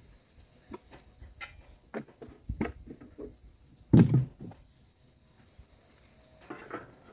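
Scattered knocks and rustles from handling the unstarted sprayer engine and moving about on dry grass. The loudest knock comes about 4 seconds in; the engine is silent.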